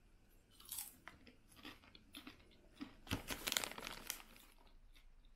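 A person chewing a mouthful of popcorn drizzled with peanut butter and chocolate: irregular crunches, loudest and thickest about three to four seconds in, then dying away.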